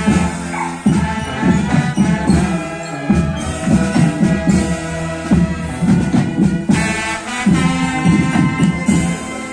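A marching band plays a tune, with brass and woodwinds over snare drums, bass drums and cymbals.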